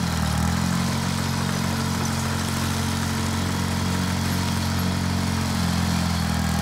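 John Deere 440 crawler dozer's engine running steadily as the dozer works a pile of loose soil, with a brief dip in engine pitch right at the start before it settles into an even drone.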